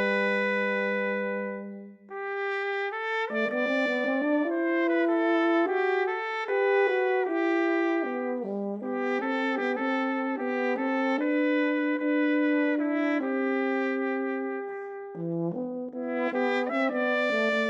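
Trumpet and euphonium playing a slow lyrical duet, the trumpet carrying the melody above the euphonium's lower line in sustained notes. A held note fades out about two seconds in, then the two instruments resume together.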